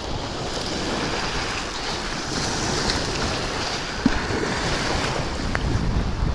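Wind-driven surf breaking on the shallow shore of an estuary, with wind buffeting the microphone as a steady low rumble. There is a brief knock about four seconds in.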